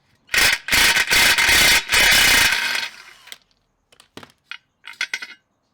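Rapid metallic ratcheting clatter from hand tools working on metal for about two seconds, then a few separate light clicks and knocks.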